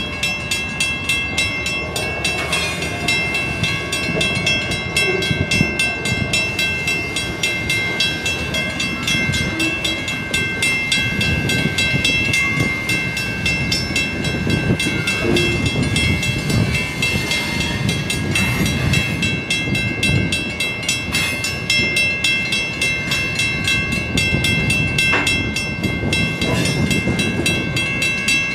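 Freight train of covered hopper cars rolling through a level crossing, the wheels clattering and rumbling on the rails. The crossing's warning bell rings steadily over it.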